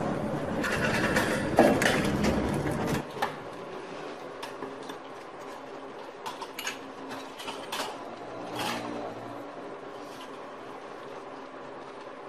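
For about the first three seconds, chopsticks stir and scrape a runny egg and lá mơ (skunkvine) leaf mixture in a banana-leaf-lined pan, over a low rumble. After that there is a quieter steady hiss of the pan cooking on the stove, with scattered faint ticks.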